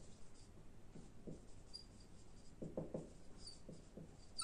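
Marker pen writing on a whiteboard: faint scattered strokes of the tip on the board, with a few brief squeaks.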